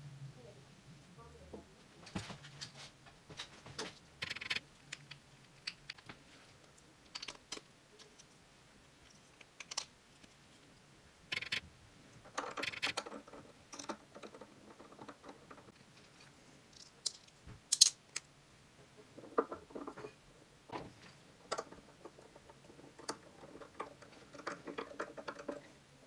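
Faint, scattered clicks and taps of small plastic parts and screws being handled: a plastic pickup bobbin and a plastic adapter plate being fitted together and screwed onto a coil-winding machine's spindle.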